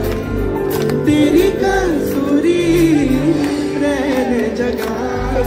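Music: a voice singing a slow, winding melody over a steady held drone.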